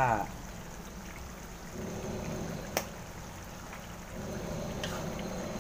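Ground pork simmering in soy sauce in a wok: a steady sizzle, with one sharp click a little before the middle.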